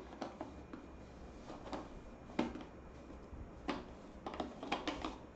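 Water bottle being handled and its cap screwed back on: scattered light clicks and knocks, the loudest about two and a half seconds in, with a quick run of them near the end.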